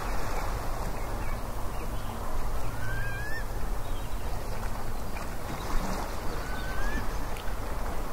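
Outdoor wind rushing over the microphone with a steady low rumble, and a bird giving a short rising whistled call twice, about three seconds in and again past six seconds.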